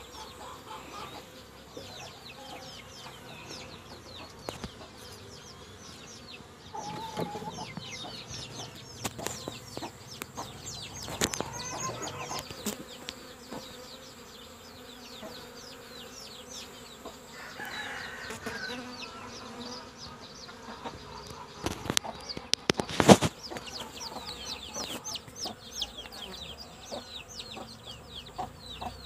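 Honeybees buzzing on a hive frame lifted out of the box, under many short, high chirps, with one sharp knock about three-quarters of the way through.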